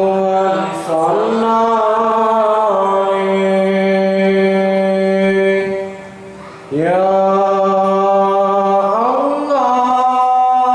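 A young man singing sholawat solo and unaccompanied into a microphone, holding long notes, with a short break about six seconds in before the next phrase begins.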